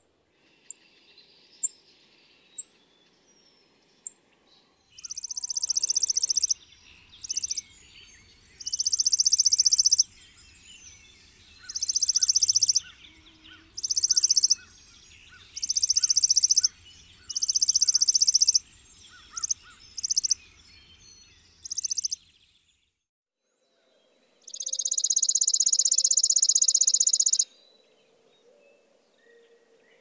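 Chipping sparrow singing: a run of rapid, high trills about a second long, repeated every second or two, with one longer trill near the end. A few single sharp chip notes come in the first few seconds.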